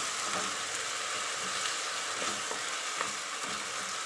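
Finely chopped onions frying with a steady sizzle in hot mustard oil in a kadhai, stirred with a wooden spatula, with a few soft ticks.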